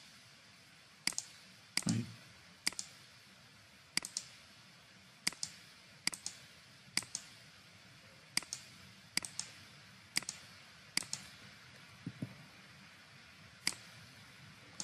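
Computer mouse button clicking: about fifteen short, sharp clicks, some in quick pairs, spaced roughly a second apart.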